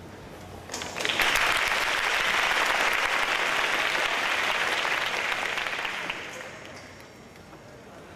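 Audience applauding: clapping breaks out about a second in, holds steady for several seconds, then dies away.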